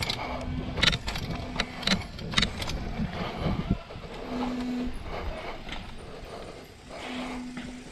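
Mountain bike riding over a rough dirt trail: sharp clicks and rattles from the bike over bumps, a low rumble underneath, and four short steady hums.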